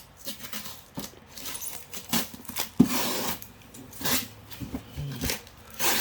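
Hands working a tightly sealed cardboard toy box open and taking its contents out: irregular scratching, tapping and rustling, with one sharp click about three seconds in.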